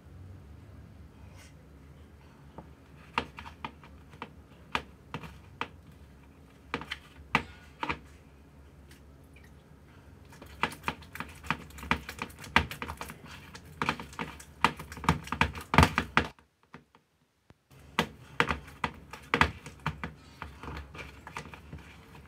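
Hands kneading, squeezing and slapping sticky bread dough in a plastic bowl: irregular wet clicks and slaps, sparse at first and much busier from about halfway through, with a brief dropout shortly before the end.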